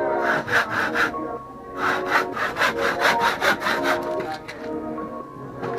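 Handsaw cutting through a wooden board in quick back-and-forth strokes, about four or five a second, with a short pause about a second in and the strokes dying away near the end.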